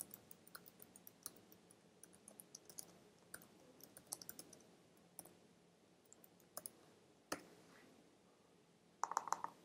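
Faint keystrokes on a computer keyboard: irregular clicks as a line of text is typed, thinning out midway, with a quick run of louder clicks near the end.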